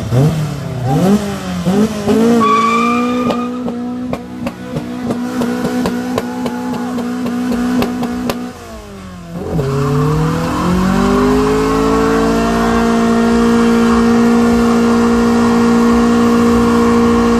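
Car engine revved in quick blips, then held at high revs for a burnout, the drive tyres spinning on the pavement. About nine seconds in the revs drop sharply, then climb again and hold steady at high revs.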